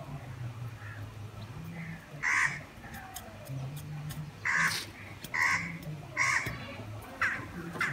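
A bird's harsh calls, five of them about a second apart, over a low steady hum.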